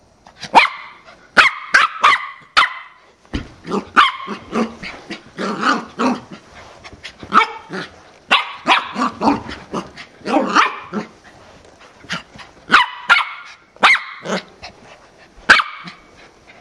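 Corgi puppy barking: a long string of short, sharp barks in irregular clusters, starting about half a second in.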